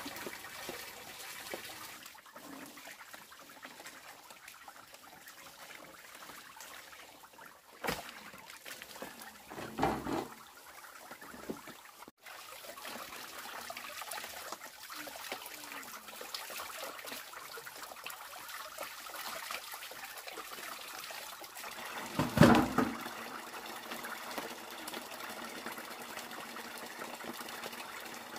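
Water running from a hose pipe and splashing into a plastic basin, with hands sloshing in the water as poultry is washed. A sharp click about eight seconds in, and brief louder sounds about ten and twenty-two seconds in, the later one the loudest.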